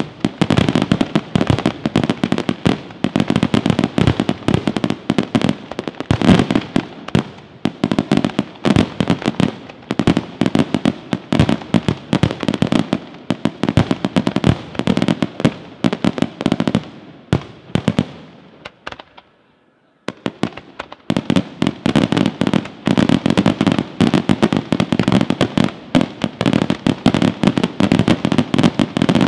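Aerial fireworks display: a dense, rapid barrage of shell bursts and bangs. It thins out and dies away to near silence about two-thirds of the way through, then a fresh rapid barrage starts suddenly.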